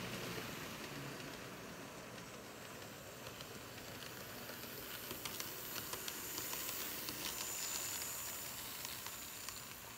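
Kato N scale ALCO PA-1 model locomotive running at low speed along the track: a faint steady hiss with light clicking from the wheels and a faint high motor whine that come up as it passes close, near the end.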